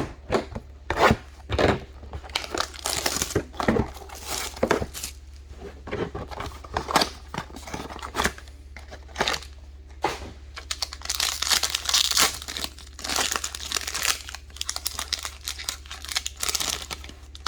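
Trading card packs being torn open and their wrappers crinkled by hand, in irregular bursts of tearing and crackling.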